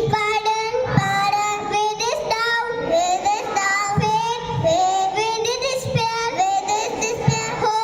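Young children singing a song, the melody held on long, gliding notes.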